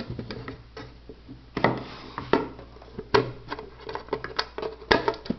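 Irregular knocks and clicks from a vertical gyro's box being handled and opened, with louder knocks about a second and a half in, around three seconds, and near the end.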